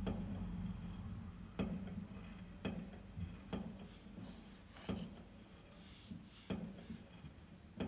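Fireworks going off: a string of sharp bangs, one every second or so, with a faint hiss partway through.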